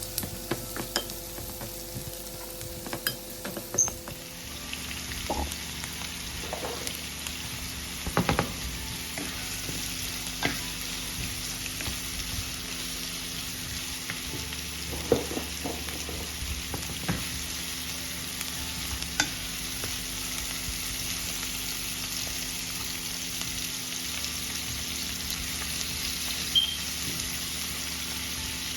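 Food frying in a pan, a steady sizzle that fills out about four seconds in, with scattered clicks and taps of a utensil stirring against the pan.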